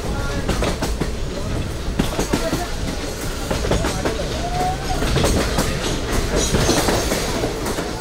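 Passenger train coach rolling along the track, heard from an open door: a steady low rumble with wheels clicking over the rail joints, and people's voices over it. It grows louder in the last few seconds as the coach runs into a tunnel.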